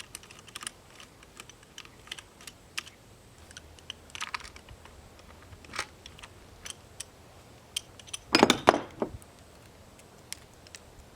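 Scattered light clicks and taps of hand tools and metal parts during work on a Mercury outboard's starter solenoid wiring, with a louder cluster of knocks and clatter about eight and a half seconds in.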